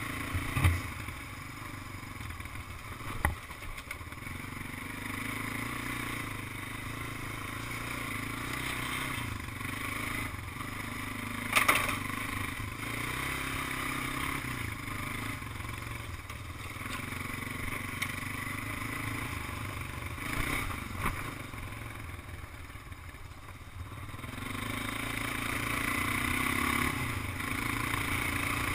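Honda ATV engine running, its pitch rising and falling with the throttle, with a few sharp knocks from the machine along the way.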